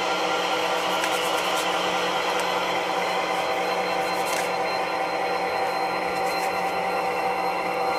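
HO scale model freight train running on the layout: a steady mechanical hum with several held tones and a few light clicks.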